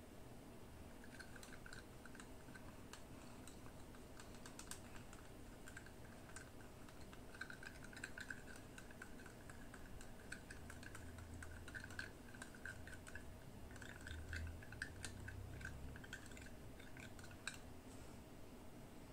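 Small paintbrush stirring and tapping inside a small plastic cup as blue paint is mixed: a long run of faint, quick light clicks and scrapes.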